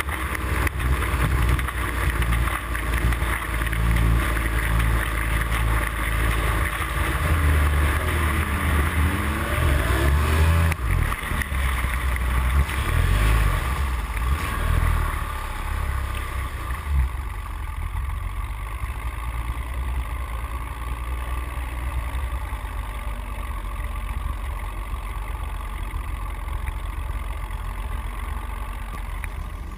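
Speedboat outboard motor running at high speed, heard from a camera on the transom, with wind buffeting the microphone and spray rushing past. A little over halfway through the sound eases and grows quieter as the boat slows.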